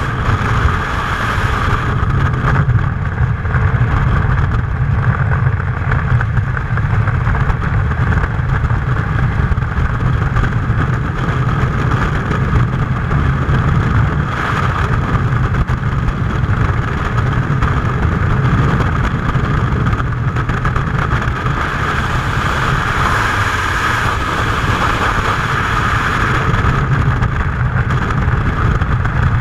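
Freefall wind rushing past a jumper-worn camera: a loud, steady rush of air buffeting the microphone throughout.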